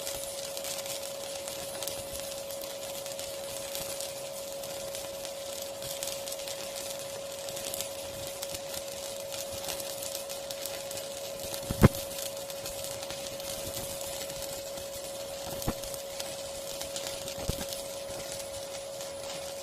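Battery-powered welding machine running, a steady high whine over an even hiss. There is one sharp click about twelve seconds in and two fainter clicks a few seconds later.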